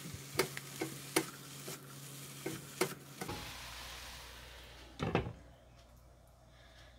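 Noodles and vegetables sizzling in a hot nonstick pan while two spatulas toss them, with sharp taps of the spatulas against the pan for the first three seconds. About five seconds in there is a clatter as a glass lid is set on the pan, and after that the sizzle is muffled and quieter.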